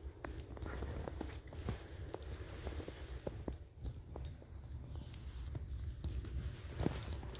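Faint, irregular crunching of snow underfoot, with small scattered clicks over a low rumble.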